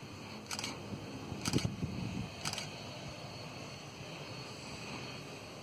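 Steady distant running of a Cessna Citation 500's Pratt & Whitney JT15D turbofan engines as the jet waits on the runway before takeoff. Three sharp clicks come about a second apart in the first half, with a low thump near the middle.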